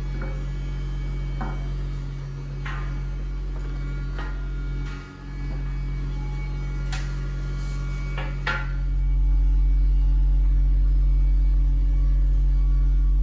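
Steady electric hum of a running workshop motor, with about eight light metallic clicks and taps, some ringing briefly, in the first nine seconds. The hum gets louder about nine seconds in and then holds steady.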